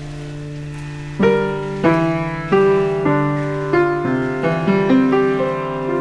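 Soft piano music: a held chord, then a slow melody of single notes struck about every half second to second from just over a second in.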